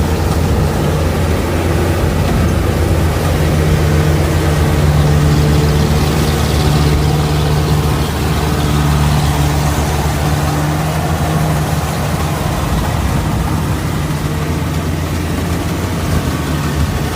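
Bimo 102 L combine harvester's engine running steadily.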